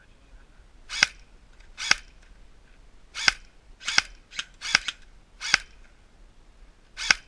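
Airsoft gun firing single shots, about seven sharp cracks at uneven intervals of roughly a second.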